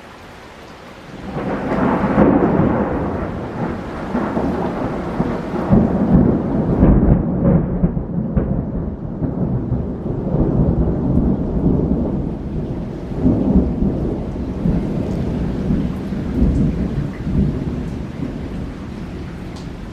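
A long peal of thunder from a close lightning strike: it breaks about a second in, rumbles loudly in several swells and slowly dies away near the end, over steady monsoon rain.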